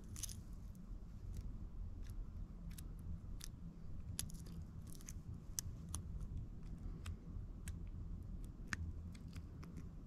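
Faint, irregular small metallic clicks of a lock pick and tension wrench working the pin tumblers of an Abus Wavyline lock, as pins are lifted and set one by one, over a low steady rumble.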